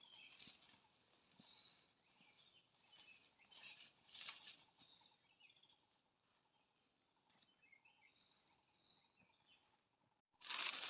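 Faint footsteps crunching and rustling through dry leaf litter and undergrowth, fading away as the walker moves off into the forest.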